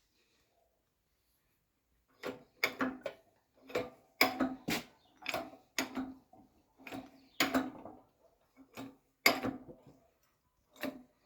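Hammer blows on steel, about a dozen uneven strikes starting about two seconds in, each ringing briefly.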